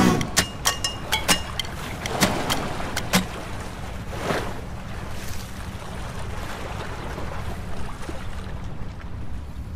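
Lake water lapping and splashing close to the microphone over a steady low wind rumble. There are several sharp splash clicks in the first three seconds and a louder wash of water about four seconds in.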